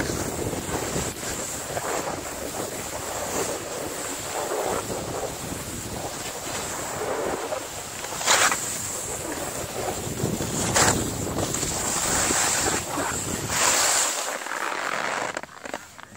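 Wind rushing over the microphone and skis sliding on snow while skiing downhill, with a few louder swooshes about 8, 11 and 14 seconds in. The rush dies down near the end.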